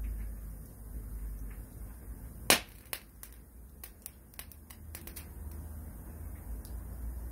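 A damp log burning in a log burner, sizzling as water boils out as froth from its end grain. One loud sharp pop comes about two and a half seconds in, followed by a quick run of smaller crackles, over a low steady rumble.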